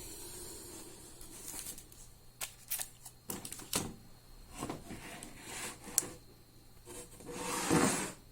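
Things being handled and shifted on a work table: a string of light knocks and clicks, then a louder rustle near the end.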